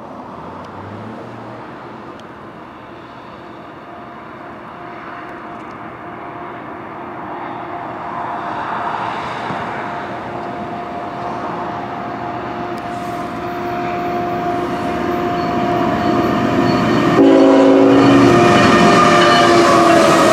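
Horn of an approaching CN freight train led by a GE ET44AC locomotive, sounding long steady blasts that grow louder as it nears. About 17 seconds in the horn comes in as a loud multi-note chord as the locomotives draw level, with engine and wheel noise rising beneath it.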